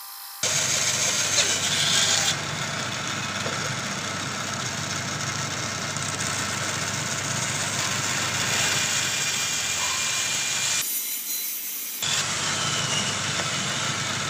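Bandsaw running and cutting through a wooden board, a steady rasping noise that starts abruptly and is loudest in the first couple of seconds. It breaks off for about a second near the three-quarter mark, then carries on.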